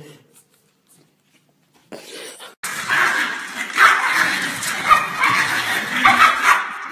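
Two small Pomeranian-type dogs play-fighting, barking and yapping at each other. The barking starts about two seconds in and goes on almost to the end.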